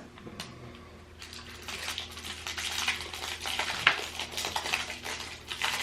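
Crinkling of the plastic wrappers on small chocolate toffees as they are handled and unwrapped, a dense crackle of small clicks starting about a second in.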